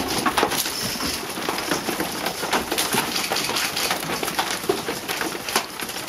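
Goat kids crowding and jostling in a pen: a busy, continuous clatter of hooves on the floor and bodies knocking about.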